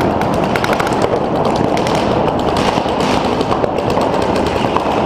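Many paintball markers firing rapidly at once during the opening break of a game: a dense, continuous crackle of pops.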